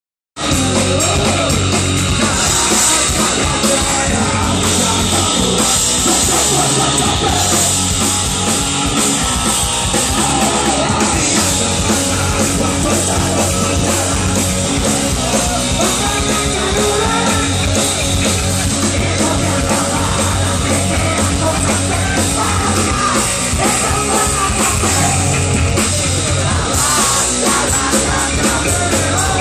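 Punk rock band playing live through a PA: drums, electric guitar and shouted vocals at a steady loud level, starting abruptly about half a second in.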